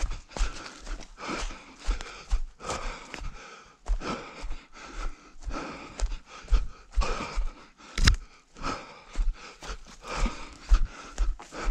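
A runner's footsteps thudding in a steady rhythm, with hard panting breaths between strides. There is one sharper knock about eight seconds in.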